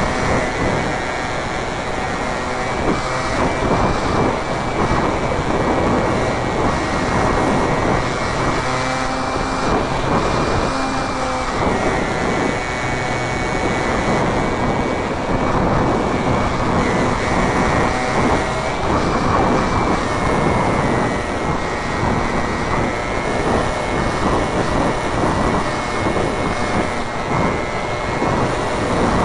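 On-board sound of a Robbe Cessna Cardinal radio-controlled model airplane in flight. Its motor and propeller give a steady high whine that shifts a little in pitch now and then, under heavy wind rush on the on-board camera's microphone.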